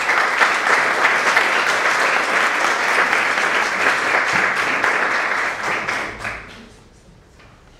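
Audience applauding, a dense patter of clapping that dies away about six seconds in.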